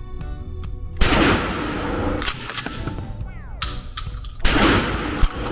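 Two blasts from a Benelli Supernova 12-gauge pump shotgun firing 00 buckshot, about three and a half seconds apart, each ringing off the concrete of an indoor range. Sharp clicks between the shots come from the pump being racked to chamber the next shell.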